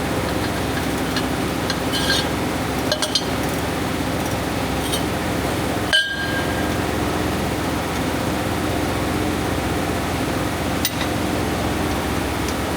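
Metal tools and parts clinking against each other in a few separate knocks, the loudest about halfway through with a short ring, over a steady mechanical hum.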